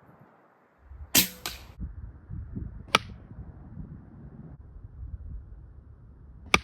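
AEA Challenger .25-calibre PCP air rifle, filled to about 4,000 PSI, firing at stacked birch boards. There are three sharp cracks: one about a second in with a short ringing tail, one about three seconds in, and one near the end.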